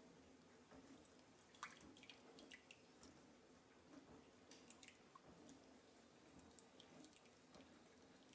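Faint, scattered glugs and drips of thick kefir poured from a plastic bottle into a glass bowl.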